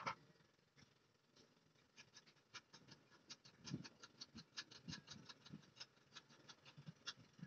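Faint, rapid small clicks, about five a second, from the brake lever assembly on a mountain bike handlebar as it is worked loose by hand. A few soft low knocks come in among them, and one sharper click comes at the start.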